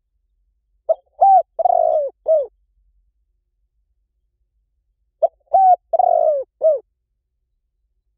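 Spotted dove cooing: two phrases a few seconds apart. Each phrase has four notes: a short note, a second short note, a longer coo that falls at the end, and a short last note.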